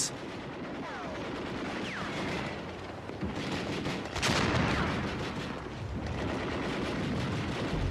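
Battle sounds: continuous crackling rifle and machine-gun fire, with a few short falling whistles about one to two seconds in and a louder blast about four seconds in.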